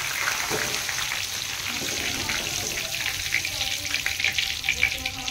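Flattened rice (chuda) deep-frying in hot oil, sizzling with a dense crackle, stirred and lifted out with a wire-mesh skimmer; the crackle thins a little toward the end.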